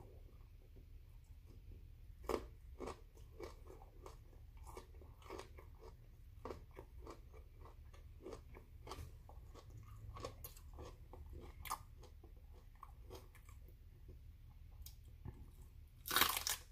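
A man chewing broccoli stalk: a steady run of small wet crunches, with a sharper crunch about two seconds in and a louder bite into a fresh piece near the end.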